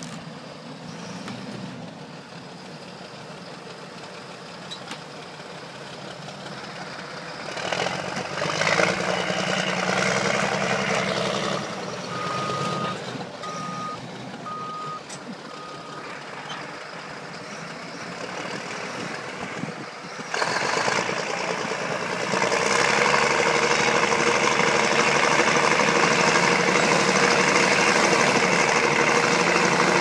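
Bulldozers' diesel engines working under load, pulling: the engine sound rises about a third of the way in and again, louder, about two-thirds of the way in, then holds at full power. Around the middle, a backup alarm beeps four times, about a second apart.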